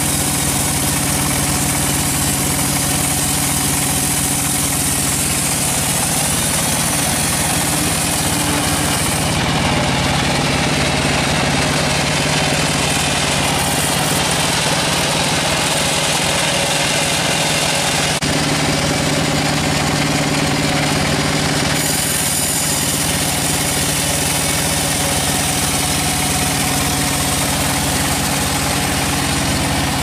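Band sawmill running steadily as its blade cuts lengthwise through a large log: a continuous machine hum and drone. The sound shifts in tone about a third and two thirds of the way through.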